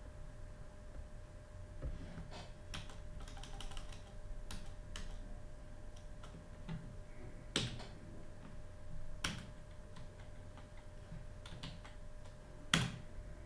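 Computer keyboard keys clicking in scattered, irregular taps, with a few sharper strikes.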